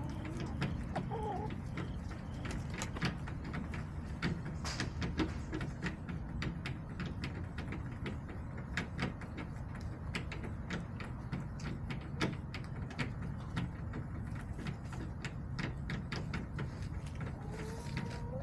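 Backyard hens with many irregular clicks and taps and a couple of short calls, one about a second in and a rising one near the end, over a steady low rumble.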